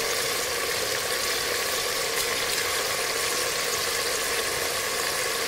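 Chicken masala sizzling steadily in an open aluminium pressure cooker on the stove, a constant even hiss.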